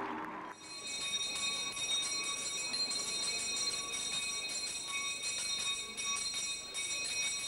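A school handbell rung continuously, a bright jangling ring that starts about half a second in.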